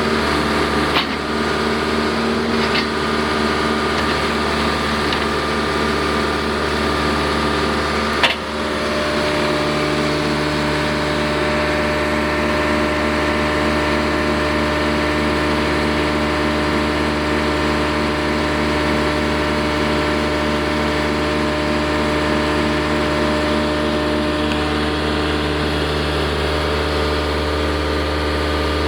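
John Deere 310C backhoe's diesel engine running steadily, with a few sharp knocks. The loudest knock comes about eight seconds in, and the engine note shifts slightly after it.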